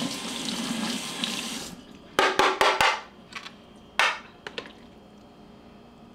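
Kitchen faucet running as a spoon is rinsed under it, shut off about two seconds in. Then a quick run of four sharp clinks and knocks of utensils, and one more a second later.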